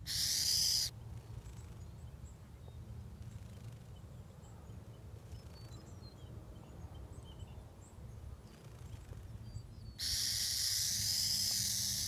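Burrowing owl giving its rattlesnake-mimicking defensive hiss twice: a short hiss under a second long at the start, then a longer, wavering one of about two seconds near the end, with quiet background between. The rasping hiss imitates a rattlesnake's rattle to scare animals away.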